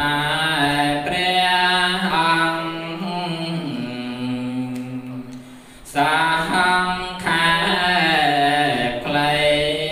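Buddhist chanting: voices holding long, slowly shifting notes in a steady recitation. The chant falls away about four seconds in and picks up again about two seconds later.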